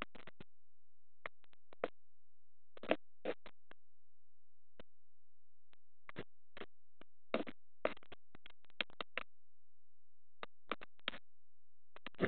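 Scattered short clicks and scratchy taps at irregular intervals, some in quick clusters, over near silence: handling noise from an underwater camera being moved among kelp.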